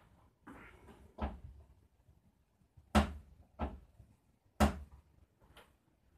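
Doors of a felt-covered wall cabinet being opened and shut by hand: a series of sharp knocks, about five, the loudest about three and four and a half seconds in.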